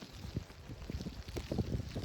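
Snowstorm wind buffeting the microphone: an uneven, gusty low rumble.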